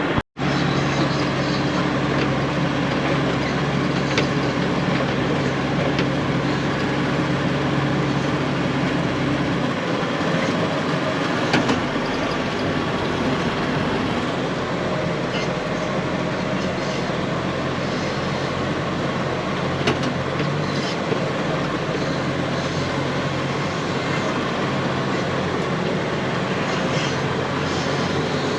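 Heavy diesel farm machinery running steadily, a constant engine drone with a low hum that shifts in pitch about ten seconds in.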